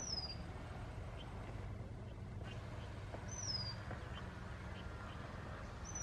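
Female Oriental magpie-robin singing: a clear, high whistled note that slides downward, given twice about three seconds apart, over a steady low background rumble.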